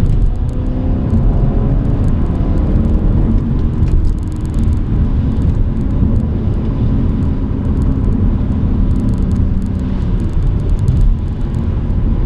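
BMW E92 coupé's straight-six engine pulling under acceleration, its pitch rising over the first few seconds, then running at a steady speed with a constant rumble of road and tyre noise.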